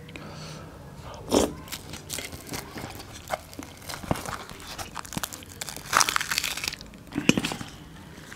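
Hands tearing crisp, puffed fried bhature bread apart, giving a run of close crinkling and crackling, with a few louder tearing bursts at about a second and a half in and again near the end.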